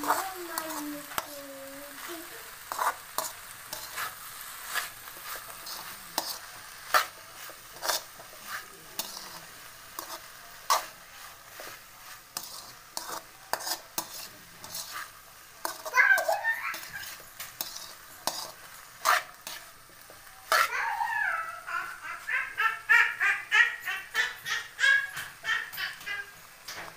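Metal spoon stirring and scraping ivy gourd slices around an aluminium kadai, clicking against the pan over a low sizzle of frying. A high-pitched voice sounds in the background at times, most in the last few seconds.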